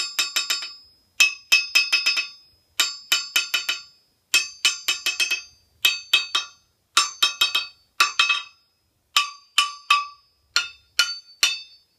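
A claw hammer's head dropped again and again onto a steel anvil face, about nine drops, each bouncing in a quick run of shortening rebounds with a clear metallic ring. This is a rebound test along the face for dead spots, and the anvil has a nice ring to it.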